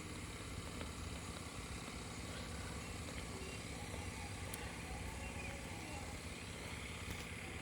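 Steady low rumble with a faint hiss, with no distinct event standing out.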